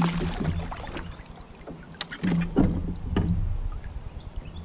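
Handling noises in a fishing kayak: scattered knocks and clicks against the hull, the sharpest about two seconds in, over a low rumble that fades near the end.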